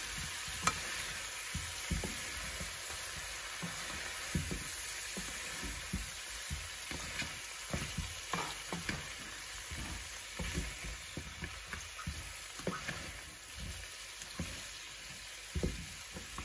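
Chicken thighs, potatoes and carrots sizzling in a non-stick frying pan while being turned with tongs and a wooden spatula, with irregular clicks and taps of the utensils on the pan that come more often in the second half. The tablespoon of flour just dusted over them is being fried in.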